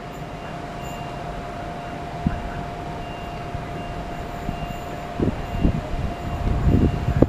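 Class 166 Networker Turbo diesel multiple unit approaching, its rumble slowly growing louder over a steady high whine, with several short knocks in the last two seconds as it draws near.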